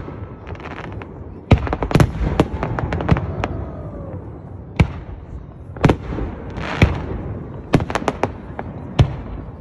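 Fireworks display: aerial shells launching and bursting in a rapid, irregular run of sharp bangs and cracks, with several reports clustered together about a second and a half to three and a half seconds in and again near the end.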